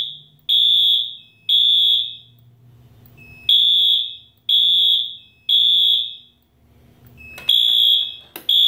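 Fire alarm system sounders going off in drill mode with a high beep in the temporal-three evacuation pattern: three half-second beeps, a pause, then three more, repeating.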